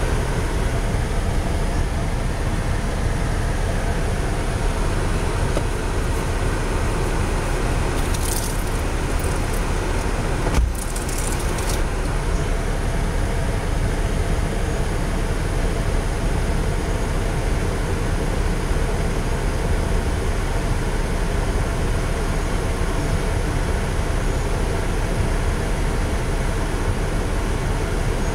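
Steady noise of a car running, heard from inside the cabin, with a single thump about ten seconds in.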